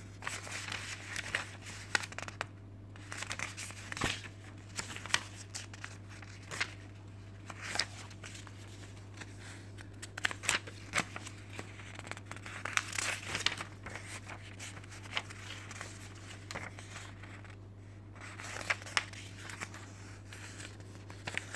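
Paper pages of an instruction booklet rustling as they are handled and turned, with many irregular sharp page flicks, over a steady low hum.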